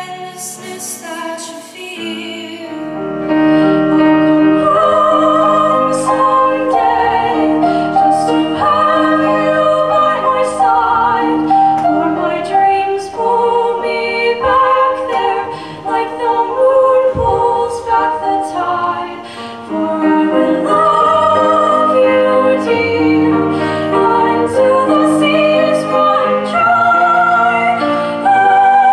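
Two women singing a duet in an operatic style, holding long notes with vibrato over a concert-band accompaniment. A short snatch of a different performance plays first and cuts off about two seconds in.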